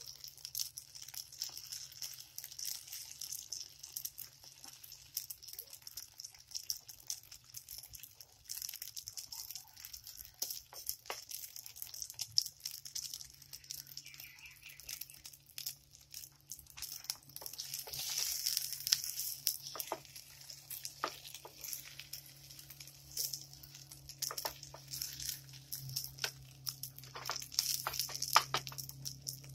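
Egg and moringa-leaf omelette frying in canola oil in a pan, a steady high sizzle full of small crackles and pops that grows busier about seventeen seconds in and again near the end.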